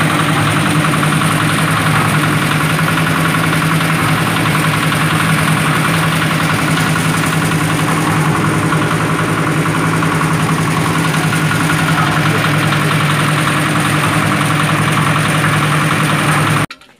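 Yanmar diesel engine of a concrete mixer running steadily at constant speed, cutting off abruptly near the end.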